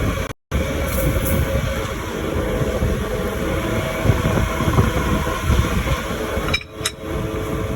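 CNC lathe running a turning cut: a steady mechanical rumble with a faint hum. The sound drops out completely for a moment just under half a second in and dips briefly near the end.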